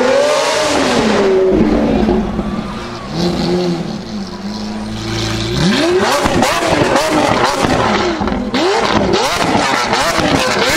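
Lamborghini Aventador S's V12 on a straight-piped Capristo exhaust revving up and down as it drives, then from about halfway a run of quick, sharp throttle blips. Crackling pops from the exhaust come in near the end.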